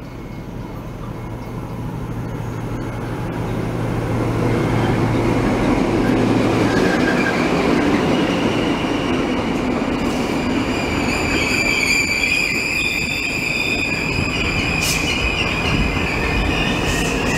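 NSW TrainLink XPT diesel passenger train arriving and rolling slowly past close by. A steady low engine drone and wheel rumble build over the first few seconds as the power car comes alongside. From about ten seconds in, a steady high-pitched squeal from the braking wheels joins in as the carriages glide by.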